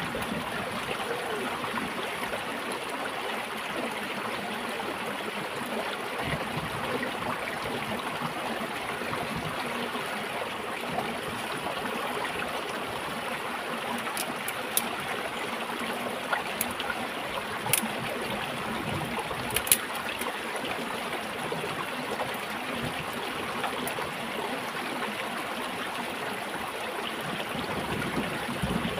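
Shallow stream running over rocks with a steady trickle and gurgle, broken by a few sharp clicks around the middle.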